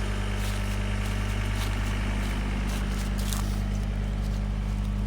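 An engine idling steadily with an even low hum, along with a few faint clicks.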